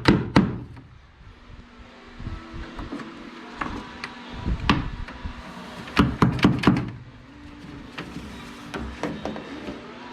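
Scattered knocks and clicks of plumbing tools and fittings being handled, in a few short clusters, over the steady hum of a fan.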